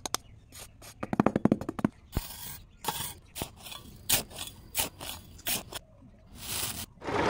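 A small scoop scraping and digging into sand: a quick run of clicks about a second in, then a string of separate short scrapes.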